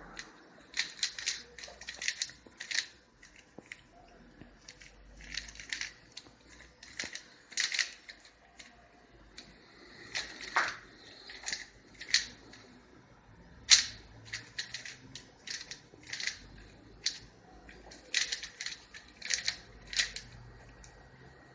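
Rubik's cube being turned quickly by hand, its plastic layers clicking and clacking in quick runs of several turns with short pauses between.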